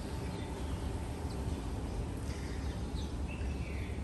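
Outdoor garden ambience: a steady low background rumble with a few faint bird chirps, about two and three seconds in.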